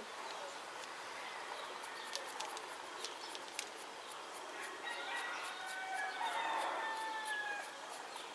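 A rooster crowing once: one drawn-out crow that begins about five seconds in, lasts roughly three seconds and drops in pitch at its end, over faint scattered ticks.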